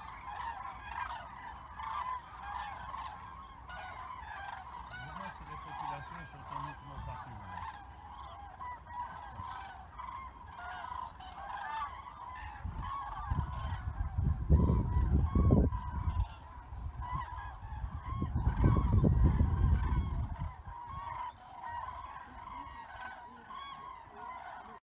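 A migrating flock of common cranes calling overhead, a dense, continuous chorus of many overlapping trumpeting calls. Twice in the second half, loud low rumbling rises over the calls.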